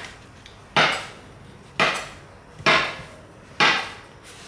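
Chinese cleaver chopping a log of wheat-starch dumpling dough into pieces, its blade knocking sharply on the hard countertop four times, about once a second.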